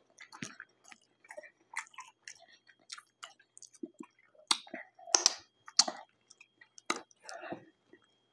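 Close-miked chewing with wet lip smacks and sharp mouth clicks as fingers are licked and sucked clean; the loudest smacks come a little past the middle.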